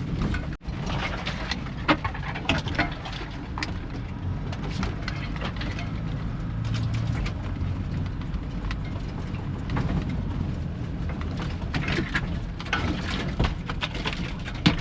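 A 4WD driving along a bumpy dirt track: a steady low engine and road rumble with frequent knocks and rattles.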